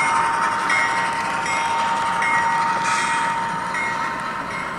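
Model freight train running past behind its CSX diesel locomotives: wheels rolling on the track with a steady high hum and a light click about every three-quarters of a second.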